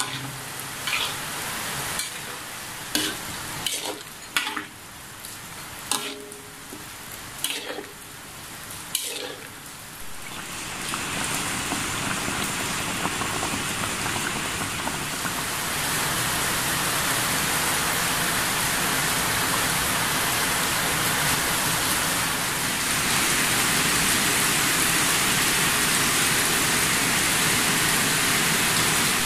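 A metal spoon stirs and scrapes chicken in coconut-milk gravy in a wok, with a run of sharp clinks over a soft simmer. About ten seconds in the clinks stop and a steady, even hiss takes over, growing louder near the middle.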